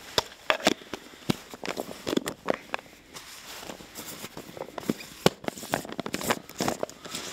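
Irregular clicks and rattles of 0.68-calibre balls knocking about inside a clear plastic tub as it is handled.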